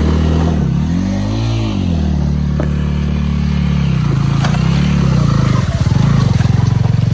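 Motorcycle engine being ridden through thick mud, the rider blipping the throttle so the engine revs up and falls back twice. Near the end the engine note turns into a fast, pulsing throb.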